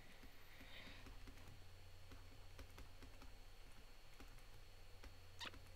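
Faint, irregular taps and clicks of a stylus writing on a pen tablet, over a steady low electrical hum.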